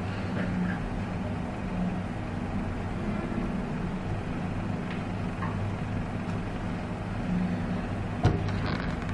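Steady low rumble and hum of background noise, with a single sharp click a little past eight seconds in.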